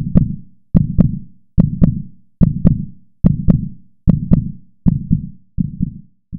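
Heartbeat sound effect: paired 'lub-dub' thumps repeating at a steady pulse of a little more than one beat a second. The beats grow fainter and shorter over the last few.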